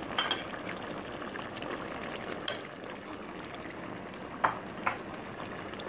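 Chicken and potato curry simmering in a metal pot with a steady soft bubbling hiss, while a wooden spoon stirring it knocks against the pot a few times.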